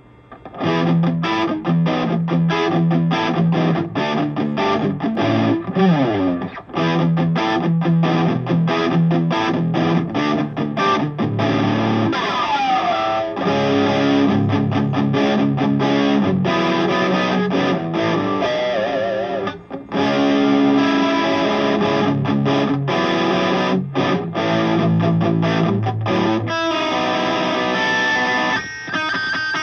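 Electric guitar, an Epiphone Les Paul Custom on its rear Burst Bucker humbucker, played through a Bruce Bennett Brown Sound distortion pedal with a Bogner 4x12 cabinet simulation. It plays a high-gain hard-rock riff of short, stopped chords, with a falling slide about twelve seconds in, a wavering held note a few seconds later and a brief stop near the middle. It is heard through studio monitor speakers.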